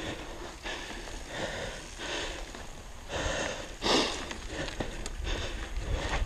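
Mountain bike tyres rolling over a dirt trail strewn with dry fallen leaves: an irregular rustle and crunch with scattered louder surges, the strongest about four seconds in. A low rumble builds near the end.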